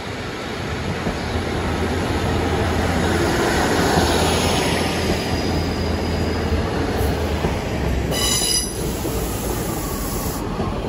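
GWR Class 150 Sprinter diesel multiple unit pulling into the platform and passing close by, its underfloor diesel engines and wheels on the rails making a steady rumble that grows louder over the first few seconds. A short high-pitched squeal sounds about eight seconds in.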